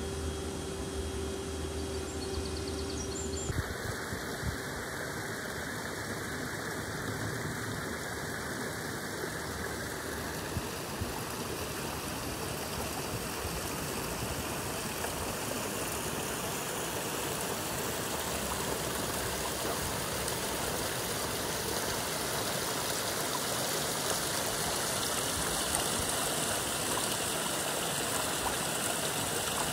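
Small stream running over stones, a steady rushing of water that grows slowly louder toward the end. For the first few seconds a steady machine hum with a low drone and one pitched tone runs instead, and cuts off suddenly.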